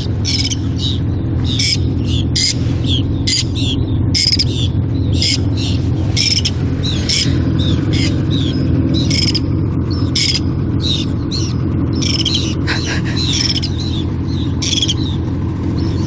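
Gulls calling over and over, short high calls about twice a second, above the steady running of a small boat's outboard motor.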